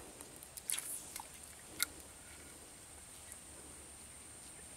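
Quiet open-air background with a steady faint high thin tone and a few soft clicks and taps in the first two seconds.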